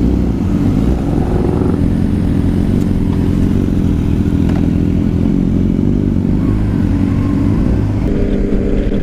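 Motorcycle engine running at a fairly steady speed, with no clear revving.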